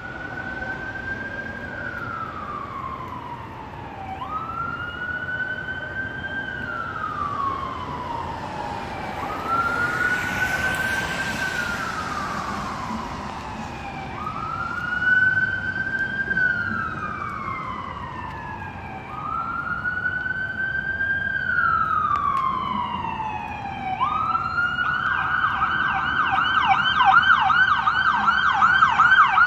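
Emergency vehicle siren sounding a slow wail, rising and falling about every five seconds, then switching to a fast yelp about 24 s in. It grows louder toward the end as the vehicle approaches.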